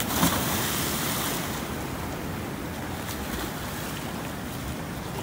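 A person jumping into a fast-flowing canal: a splash just after the start that hisses away over about a second, then the steady rush of the flowing water, with some wind on the microphone.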